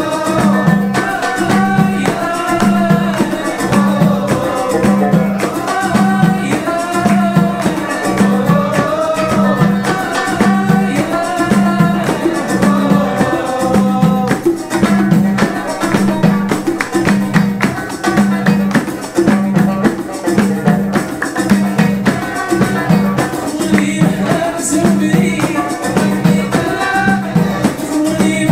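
Live Amazigh (Berber) folk music: a banjo plays a bending melody over a steady beat on a hand-held frame drum, with a keyboard joining in.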